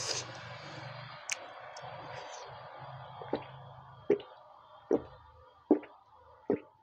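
A person drinking from a glass mug in gulps, with a short swallowing click about every 0.8 s in the second half. A faint steady low hum underneath fades out about halfway through.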